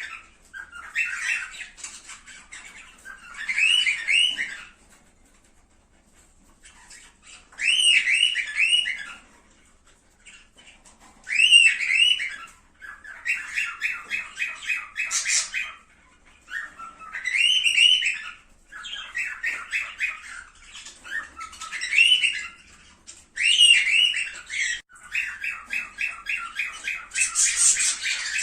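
Cockatiels calling in repeated short bouts of warbling, whistled notes about a second long, some running into fast, even chattering, with a short pause about six seconds in.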